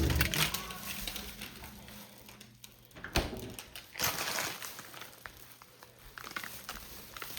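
Scattered knocks and rustling of things being handled, with a sharp knock about three seconds in and another about four seconds in.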